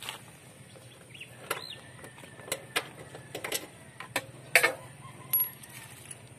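Sharp metal clicks and taps of a hand tool working on a scooter's rear shock absorber mount, about seven of them, irregularly spaced, the loudest about four and a half seconds in.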